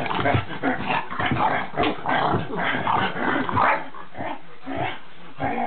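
English bulldog puppy growling in play: a rapid, unbroken run of short growls and yaps.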